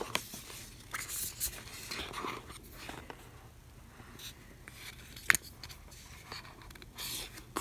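Faint handling noises from a plastic earbud charging case: light scrapes and small taps, with one sharp click about five seconds in.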